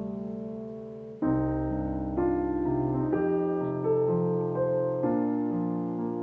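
Slow, soft piano music, with notes and chords struck about once a second and left to ring out.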